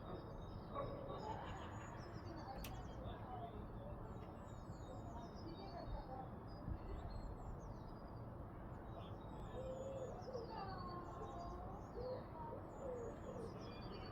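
Small songbirds chirping and twittering in many quick, high calls, joined near the end by a run of lower, curving calls, over a steady low background rumble.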